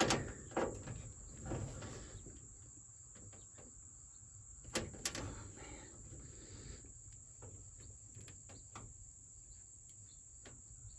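Scattered clicks and light knocks of a hand tool turning a stuck door-handle screw on a truck door, the sharpest pair about five seconds in; the driver bit is a poor fit in the screw head. A steady high-pitched tone runs underneath.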